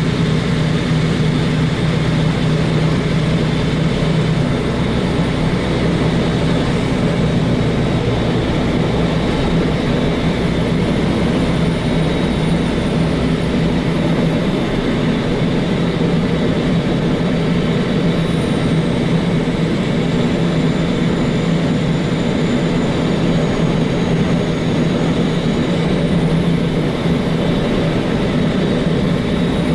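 Truck's diesel engine running steadily under way, heard from the cab with road and wind noise. The deepest rumble eases a little about halfway through.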